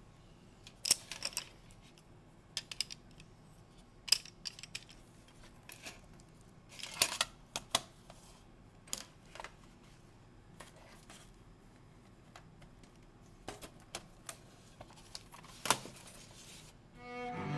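Metal art-supply tins and drawing pencils handled on a table: irregular sharp clicks and light metallic clatters, a few at a time with pauses between. Music fades in near the end.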